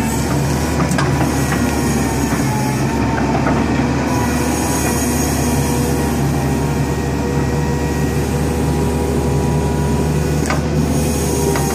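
Case 81P excavator running steadily under load with a steady high whine as it works an uprooted tree stump. A few sharp metal knocks come about a second in and near the end.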